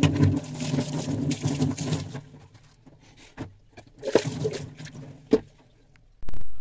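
Hands scrubbing a stainless steel kitchen sink, dense rubbing and scraping for about two seconds, then a few short knocks and rubs. Near the end, a loud dull thump of the phone being handled.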